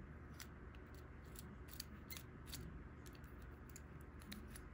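Faint, irregular light clicks and taps of a small plastic toy car being handled and turned in the fingers, over a low steady room hum.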